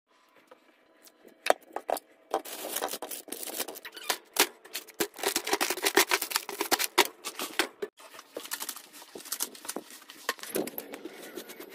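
Plastic grocery packaging and bags crinkling and rustling, with many sharp clicks and light knocks as packages are handled and stacked in a refrigerator drawer; busiest in the middle, thinning out near the end.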